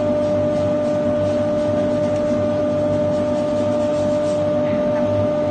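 CNC router running, its spindle giving a steady high whine over the machine's constant noise.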